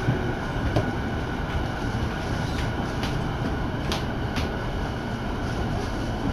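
Electric commuter train of the JR Itsukaichi Line heard from inside the carriage: a steady low running rumble, with a handful of sharp clicks in the middle.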